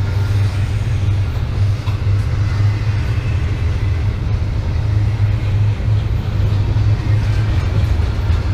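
BNSF intermodal freight train running past with a loud, steady low rumble.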